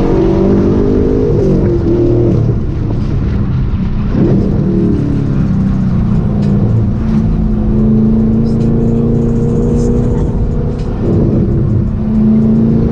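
Car engine running hard, heard from inside the cabin. Its pitch falls and climbs again a few times as it accelerates and eases off along a winding road.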